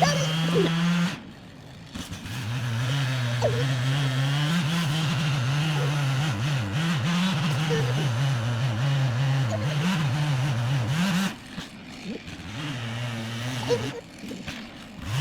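Small gas engine running hard, its pitch wavering up and down as if under load. It drops away briefly about a second in, comes back, then falls quieter around eleven seconds in and again near the end.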